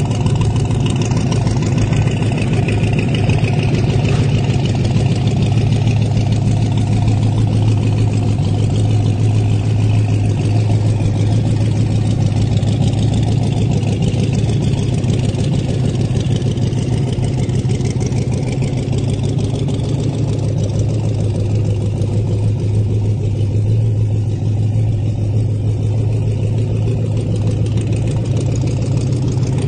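Ford Model A's four-cylinder flathead engine idling steadily.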